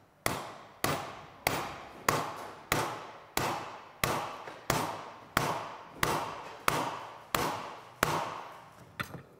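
Steady hammer blows on a nut threaded onto the end of a Honda PA50 moped crankshaft, driving the crankshaft into its bearing in the crankcase half. About thirteen even strikes, roughly one every two-thirds of a second, each ringing briefly, with a lighter tap near the end.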